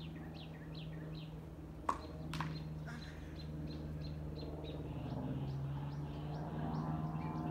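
A bird chirping over and over, about three short, falling chirps a second, over a steady low hum. Two sharp knocks about half a second apart come roughly two seconds in.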